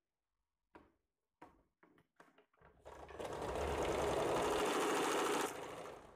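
A few light clicks and knocks, then a sewing machine runs steadily for about three seconds, stitching blouse fabric, and slows to a stop near the end.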